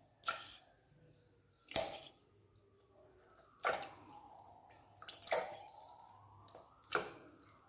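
Metal spoon clinking against a glass jug five times, about every one and a half seconds, as spoonfuls of milk are poured from a pouch and tipped into the batter, with a faint trickle of liquid between the clinks.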